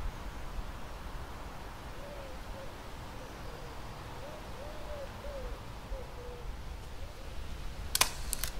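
A dove cooing: a run of short, soft, low coos over a steady outdoor hiss. A few sharp clicks come near the end and are the loudest sound.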